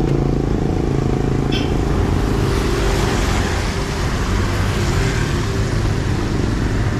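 Motor traffic running past on a wet road, a steady low rumble with a swell of tyre hiss about three seconds in.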